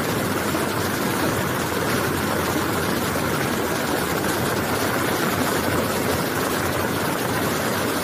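Steady rushing of a raging floodwater torrent mixed with the engine of a compact wheel loader running as it drives through the water.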